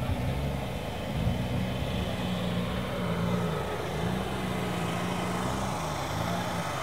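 Six-cylinder turbo drag truck engine running at idle, its pitch swelling up and dropping back in slow, even cycles about every second and a half.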